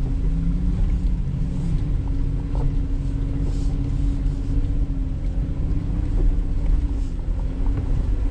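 2019 Jeep Wrangler JL's engine running at a steady low pace as the Jeep crawls up a steep dirt trail: a steady low drone with little change in pitch.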